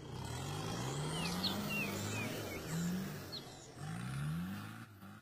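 A 4x4's engine revving up several times, each rev a rising pitch, over a steady mechanical noise.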